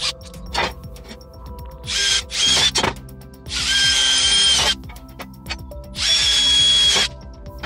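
Cordless drill boring holes through steel trunking: three short bursts of drilling, each with a high steady whine as the bit cuts the metal, with a few sharp clicks between them.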